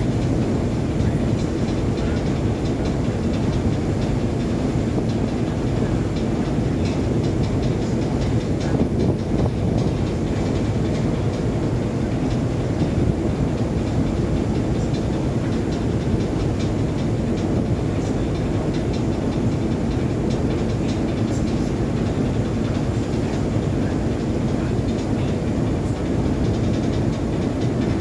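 Steady low rumble of a ship under way: engine drone mixed with water rushing along the hull.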